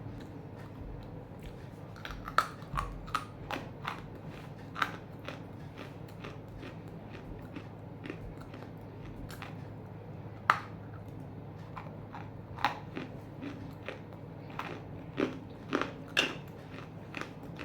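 Hard chunks of half-roasted edible clay being bitten and chewed, crisp crunches at irregular intervals starting about two seconds in, over a steady low hum.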